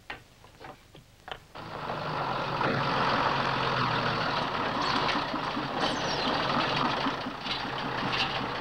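A few light clicks, then about a second and a half in an old truck's engine comes in suddenly, idling with a steady, evenly pulsing beat.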